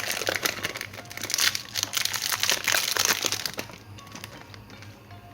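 Crinkling, crackling plastic packaging being handled as a cube is unwrapped, dense and busy, dying down nearly four seconds in. Background music plays underneath.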